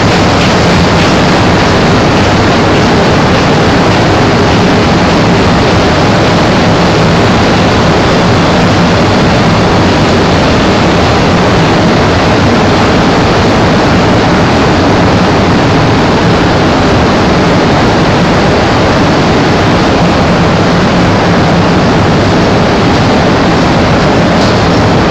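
Loud, steady noise of industrial machinery running, with a low hum underneath.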